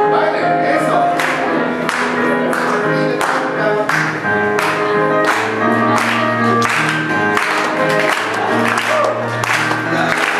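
Electronic keyboard playing held chords and a melody over a steady beat, with a crowd clapping along in time, about one and a half claps a second.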